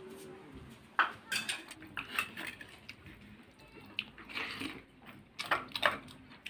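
Stainless steel bowls and plate clinking and knocking on a hard floor: several separate sharp clinks, with a brief metallic ring at the start.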